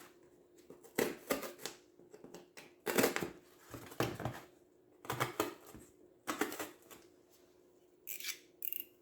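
A run of short scratching strokes, a pen drawing on paper to sketch where the fasteners go, with a brief high squeak near the end.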